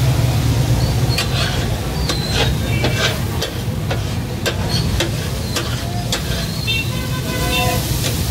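Metal spatulas clacking and scraping on a large flat griddle (tawa) as chopped heart and kidney for tak-a-tak sizzle on it. The clacks are irregular, thickest in the first half, over a steady low rumble.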